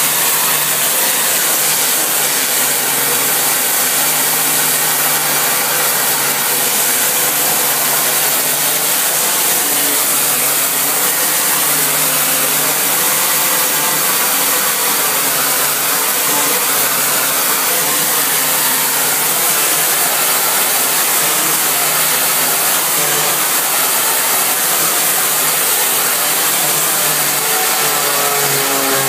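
Pressure washer running: a steady, loud hiss of the high-pressure spray over the machine's even hum, with the pitch climbing briefly near the end.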